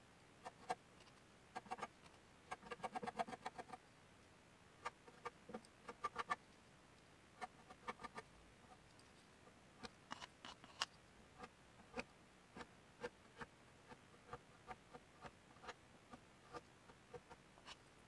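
Faint, scattered clicks and scrapes of a putty knife scooping wood putty from a plastic tub and spreading it on a wooden board. There is a busier run of clicks about three seconds in.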